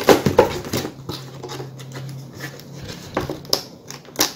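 A cardboard retail box being handled and folded: irregular scraping and rustling with a few sharp knocks, the loudest just after the start and again near the end.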